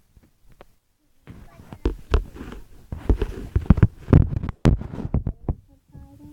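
Slime being squeezed and poked, giving a quick irregular run of clicks and pops that starts about a second in.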